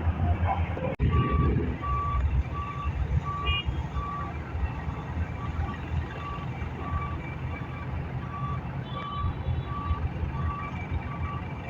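Reversing alarm on heavy earthmoving equipment, beeping steadily about twice a second over the low rumble of a diesel engine running. The beeping starts about a second in, just after a sudden break in the sound.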